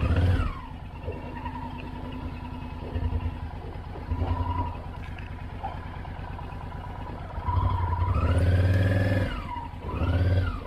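Honda motorcycle engine running at idle with repeated throttle blips. The longest rev comes about 7.5 s in, lasts nearly two seconds and rises and falls in pitch, and a shorter rev follows near the end.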